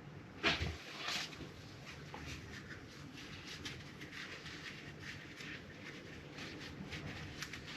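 Motorcycle fork parts being handled during reassembly: a sharp knock about half a second in and another about a second in, then scattered light clicks and taps.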